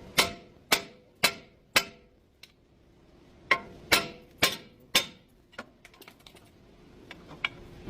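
Hammer blows on metal, each ringing briefly: four strikes about half a second apart, a pause, then four more, followed by a few faint ticks.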